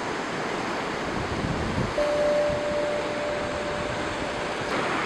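Steady rush of ocean surf, with a single long held musical note coming in about two seconds in.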